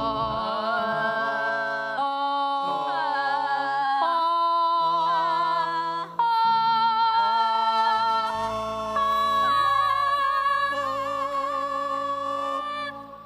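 Voices singing a vocal exercise, held notes from low to high, several voices overlapping and changing note every second or two. A low steady drone joins about eight seconds in.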